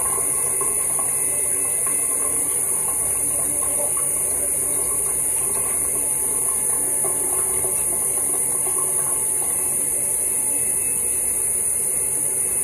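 Electric toothbrush buzzing while brushing teeth, over a steady high hiss that runs unchanged throughout and is the loudest sound.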